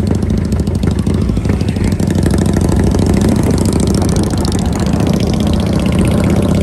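Motorcycle engine running steadily, with no change in speed.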